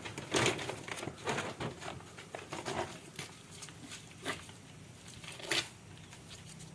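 Agitated Indian rat snake (dhaman) giving a series of irregular, breathy hisses, the loudest near the start and about five and a half seconds in: a defensive warning sound.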